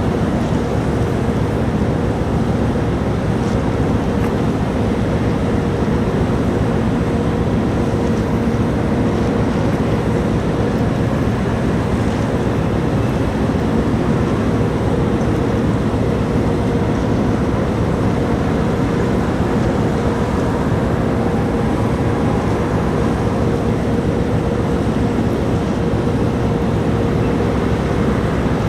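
Steady low rumble of the ferry Orange 7 under way, with a constant drone-like hum over it and no change in level.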